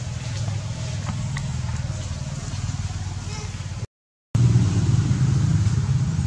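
A motor engine running steadily, a low rumble. It cuts out for a moment about four seconds in, then returns louder.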